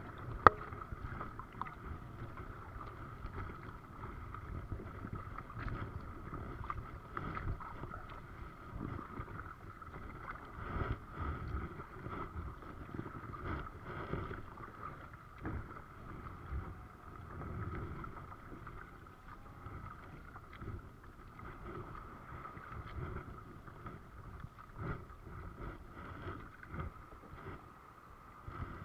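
Kayak paddling: paddle blades dipping and splashing water in irregular strokes, with wind buffeting the microphone and a faint steady hum. A single sharp click about half a second in is the loudest sound.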